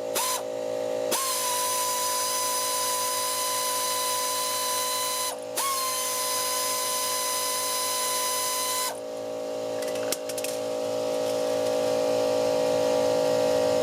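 Power tool whining as it spins out the clutch pressure plate bolts: two steady runs of about four and three and a half seconds with a short break between, then a few clicks after it stops.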